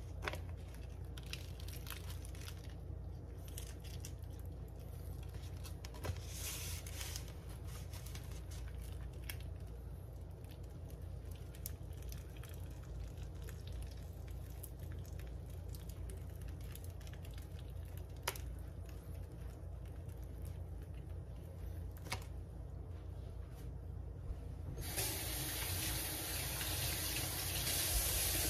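Faint clicks and rustles of hands handling a sandwich and a paper plate over a steady low hum. A few seconds of hissing noise near the end, cut off by a sharp knock.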